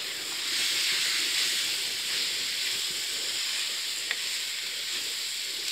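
Fenugreek leaves, chicken and freshly added raw potato chunks sizzling steadily in a hot pan as they are stirred with a wooden spoon, with one light knock about four seconds in.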